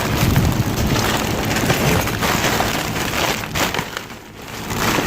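A heavy, full plastic bag rustling and crinkling as it is shoved and squeezed into a car, with scattered knocks from the handling. It eases off briefly near the end.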